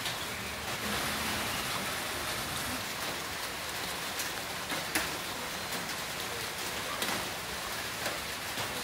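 Heavy rain falling steadily, with occasional sharper taps of drops striking a surface.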